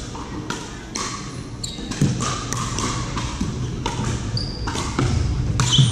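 Pickleball rally: paddles striking a hollow plastic pickleball and the ball bouncing on a hardwood court, a quick series of sharp pops about every half second.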